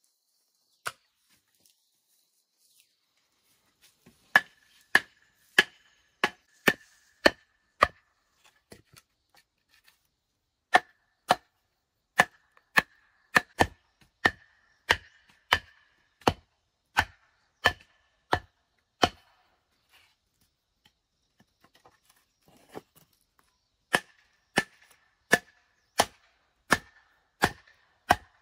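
Rhythmic chopping with a blade: sharp strokes about one and a half per second in three runs with pauses between, each stroke followed by a short ringing tone.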